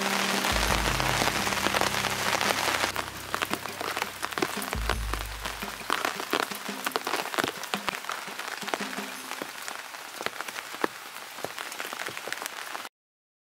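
Steady rain with many separate drops ticking, under background music that fades out in the first few seconds; the sound cuts off about thirteen seconds in.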